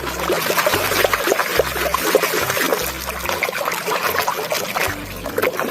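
Water trickling and splashing as a muddy toy animal is rinsed clean, with small clicks and splashes of handling throughout.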